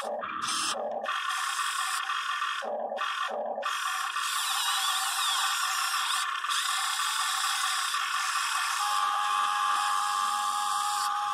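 Electric motors and gearboxes of a Huina 580 RC excavator whirring as its arm and ripper work. The whir cuts out briefly a few times in the first four seconds, and a steadier tone comes in near the end.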